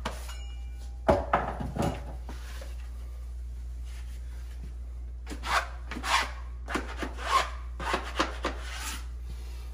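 Hand rubbing and pressing Phillip Jeffries Abaca Mist grasscloth wallpaper into a wall corner. There are a few short scraping strokes about a second in, then a run of about eight brushing strokes in the second half.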